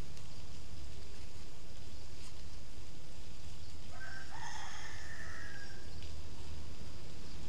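A single long animal call, with several stacked tones, about four seconds in and lasting just under two seconds, over a steady low rumble.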